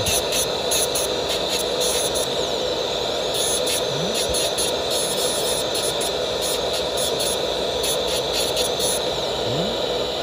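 Dental lab micromotor handpiece running steadily, its thin separating disc working against the porcelain surface of a metal-ceramic bridge.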